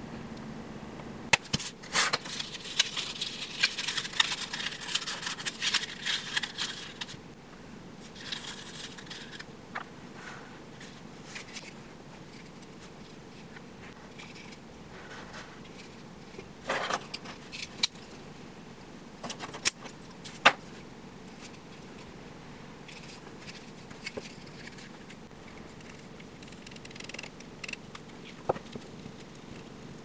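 Small handling noises on a tabletop. From about a second and a half in there are five or so seconds of dense rustling and jingling, then scattered sharp clicks and taps.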